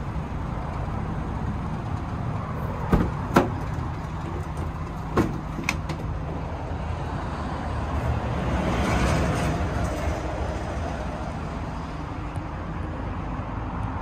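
Rear doors of a Ford Transit Connect van being unlatched and swung open: a few sharp clicks and clunks from the handle and latches about three to six seconds in, over a steady outdoor rumble, with a rush of noise swelling and fading around nine seconds in.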